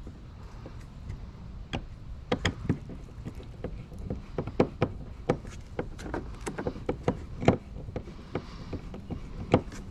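Irregular sharp clicks and knocks of screws and hardware being handled and fitted into the orange gear track on a plastic kayak hull.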